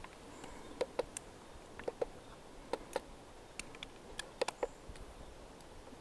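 Plastic buttons on a trail camera's keypad being pressed to page through photos: a dozen or so short, quiet clicks at an uneven pace, sometimes two in quick succession.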